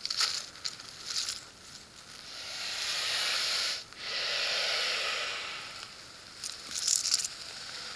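Rattlesnake, a northern Pacific rattlesnake, hissing: two long, even hisses back to back with a brief break between them, plus a few short crackles around them.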